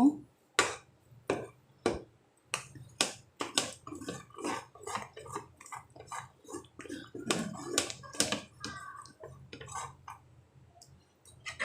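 A spoon stirring a thick, sticky urad dal, coconut milk and palm jaggery mixture in a cooking pan: a string of irregular sharp clicks of the spoon against the pan, about one to two a second, with soft wet sounds of the paste between them.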